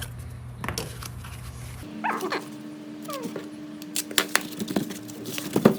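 Several short whines falling in pitch, like a dog whimpering, about two and three seconds in. Sharp clicks and taps come near the end.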